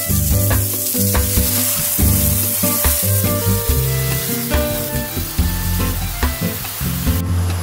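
Hot frying pan sizzling loudly as milk and then fresh cream are poured in over fried sausages and onions. The sizzle cuts off suddenly near the end, under steady background music.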